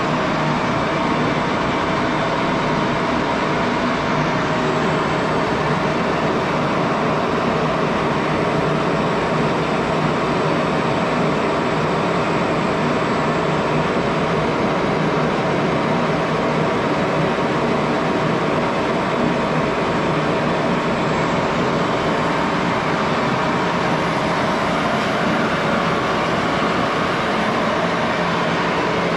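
1941 Axelson 14x30 engine lathe running steadily under power, an even machine noise with a faint steady gear whine over it.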